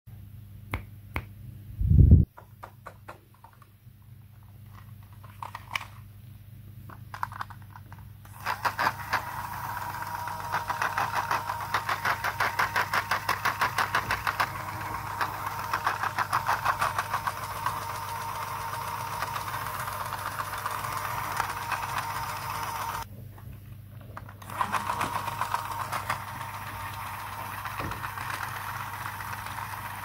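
Small battery-powered toy sewing machine running: a motor whine with a rapid plastic clatter of the needle about four times a second. It stops for a second or so and starts again. Before it starts, plastic toys are handled with light clicks and one loud bump.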